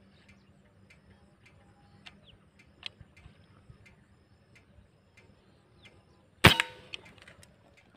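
A single air rifle shot, a sharp crack with a short ringing tail, about six and a half seconds in, after faint scattered ticks.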